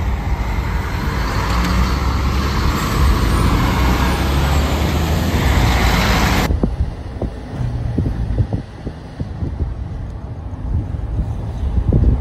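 Road and traffic noise heard from a moving car: a steady low rumble of engine and tyres under a loud hiss, with a large vehicle passing close alongside. About two-thirds through it cuts off abruptly to a quieter ride, a low rumble with a few scattered knocks.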